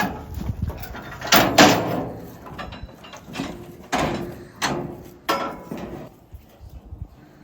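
Metal livestock handling equipment, a calf chute or gates, clanging and rattling as calves are worked: a string of loud bangs and knocks, the loudest about a second and a half in.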